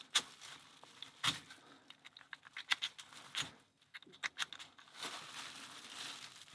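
A euro cylinder lock being worked in a cylinder holder by hand, giving a series of sharp, irregular clicks and knocks while it stays stuck, then a soft rustle of handling near the end.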